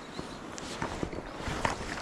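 Footsteps, a series of irregular short knocks over a steady rush of wind and water.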